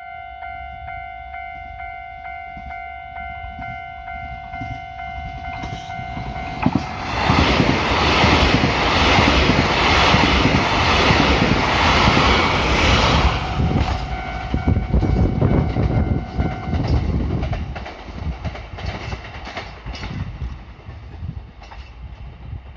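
Level-crossing warning bell ringing steadily, then a KiHa 261 series diesel limited express train passes for about six seconds, its wheels and engines drowning out the bell. The bell is heard again as the train moves away, then stops.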